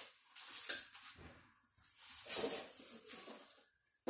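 Clear plastic wrapping crinkling and rustling in irregular bursts as it is handled and put down on the table.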